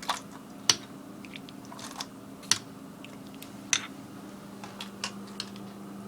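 Scattered light clicks and taps of kitchen items being handled, one every second or so, over a steady low hum.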